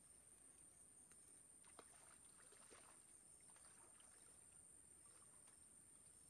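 Near silence, with a few faint clicks and ticks about two to three seconds in.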